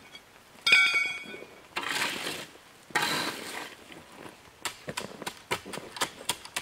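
Steel garden rake working loose gravel fill: a sharp clank that rings briefly about a second in, then two long scraping pulls of the tines through the gravel. Near the end comes a rapid run of clicks and taps as the rake knocks against the stones.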